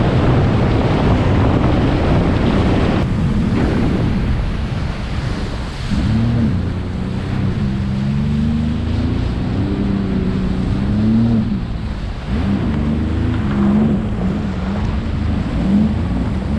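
Speedboat running fast over the water, with wind buffeting the microphone and the rush of water against the hull. From about six seconds in, an engine note wavers up and down.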